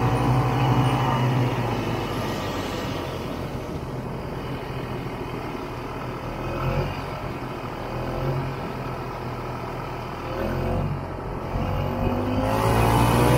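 Two-stroke engine of a 1967 Ski-Doo Olympic snowmobile running as it rides over snow. It eases off about two seconds in, runs quieter through the middle, and picks up again near the end.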